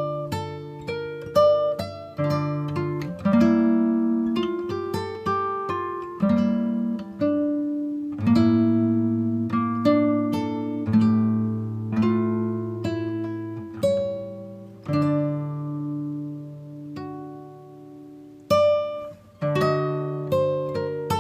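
Background music played on plucked acoustic guitar, with chords and notes picked one after another, each ringing and dying away.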